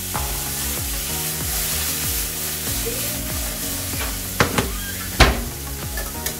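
Diced zucchini, capsicum and mushrooms sizzling in a frying pan as they are stirred, with a few sharp knocks about four to five seconds in.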